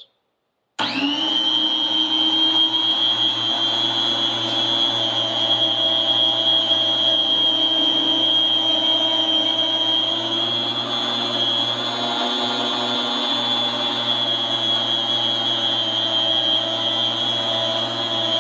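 Cabela's 7.5-inch heavy-duty food slicer's electric motor and spinning blade running with a steady high whine as meat is sliced, starting suddenly just under a second in. It is a little bit noisy and sounds like it is spinning faster than it is.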